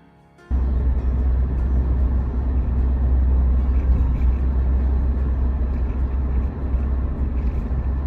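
Suzuki Jimny driving: a steady low rumble of engine and road noise that cuts in suddenly about half a second in.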